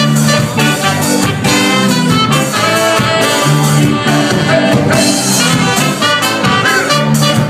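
Live reggae band playing, with a horn section of trombone and saxophone over congas, drum kit and a repeating bass line.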